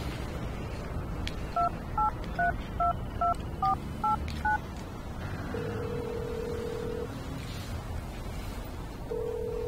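Cordless phone keypad dialing: eight quick two-note touch-tone beeps, one per key press. After it, a steady ringing tone sounds twice with a pause between, the number ringing with no answer.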